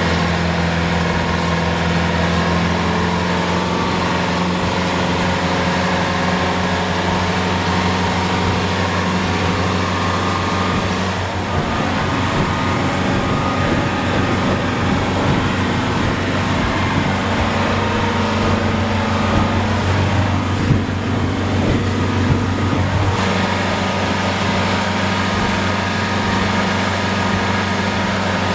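Yanmar FX24CZ boat's inboard diesel engine running steadily underway at about 3,000 rpm, an even drone over the rush of the wake and wind.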